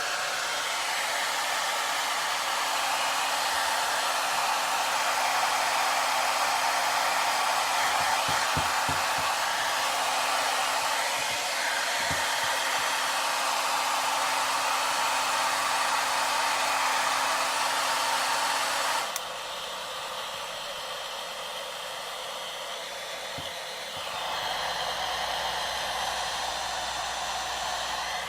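Electric hair dryer blowing steadily with a rushing airflow and a faint motor hum. About two-thirds of the way in it abruptly drops to a quieter, hum-free blowing, then rises slightly again near the end.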